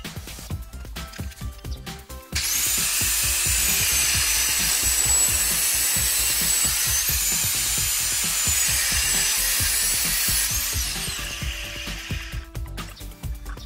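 Angle grinder with a cut-off disc cutting through a metal exhaust pipe: it starts about two seconds in with a high whine whose pitch dips briefly midway, then spins down near the end.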